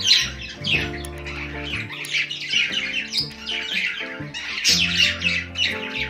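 A group of budgerigars chattering in fast, overlapping chirps and squawks, over background music with slow held notes.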